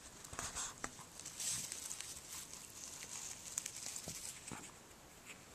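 Dry grass, twigs and leaves rustling in irregular spells with a few small clicks as a hand parts the undergrowth to pick a morel mushroom, quieter near the end.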